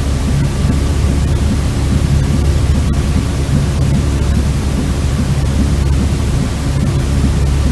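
Steady, continuous white-noise sleep sound, deep-toned, with most of its weight in the low end, unchanging throughout.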